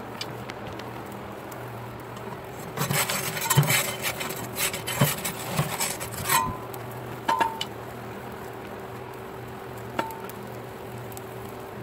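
Perforated metal pizza peel scraping and clattering against the stone floor and metal shell of a wood-fired pizza oven while the pizza is turned: a few seconds of scrapes and knocks, then a couple of short metallic clinks with a brief ring, and one last click near the end.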